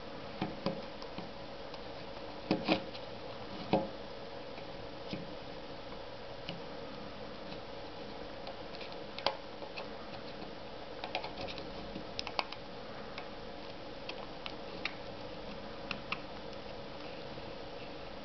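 Irregular small plastic clicks and taps from a compact LED headlamp being handled and its battery housing hinged open. A few louder clicks come in the first four seconds, then lighter scattered ones.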